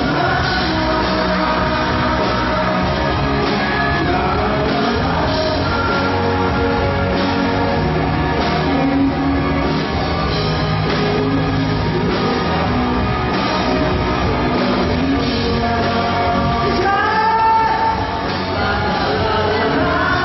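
Live pop-rock song on a concert stage: a band track with a steady beat and a voice singing, with a vocal glide a little before the end.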